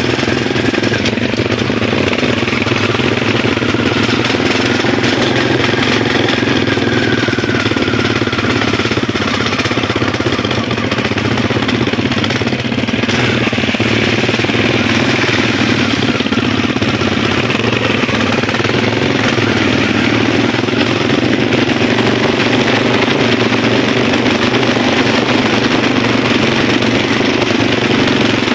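Small motorcycle engine running steadily at riding speed, heard close up from on the bike.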